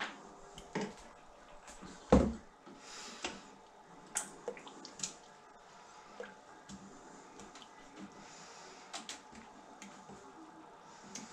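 Ladle knocking and scraping against a steel cooking pot as thick marmalade is scooped out and spooned into plastic tubs: scattered soft knocks and clicks, with one louder knock about two seconds in.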